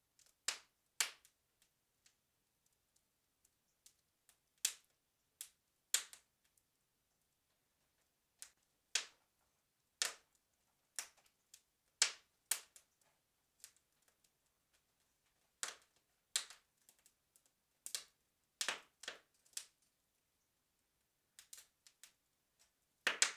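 Fire burning in a brick blacksmith's forge hearth, crackling with sharp, irregular pops every second or two and a quick run of pops near the end.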